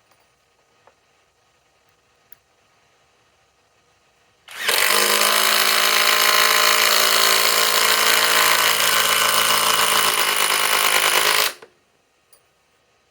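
Flex compact impact driver hammering a 4-inch TimberLOK screw into wood in one steady run of about seven seconds, stopping abruptly as the screw seats.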